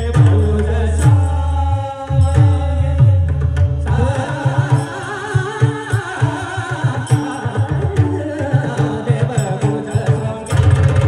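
Abhang devotional singing with pakhawaj drum accompaniment. Deep pakhawaj strokes under steady held tones come first, then about four seconds in a singer's voice with wavering pitch enters over quick, light percussion strikes.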